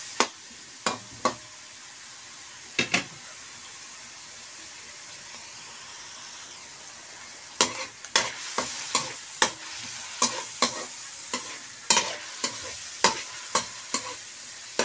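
Meat, garlic and onion frying in a pan with a steady sizzle, while a spatula stirs and knocks against the pan. There are a few knocks in the first three seconds, then a stretch of plain sizzling, then brisk stirring with about two knocks a second from about halfway through.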